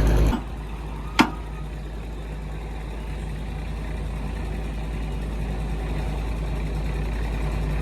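Komatsu PC210 excavator's diesel engine idling steadily, after a louder sound cuts off sharply just after the start. A single sharp click about a second in.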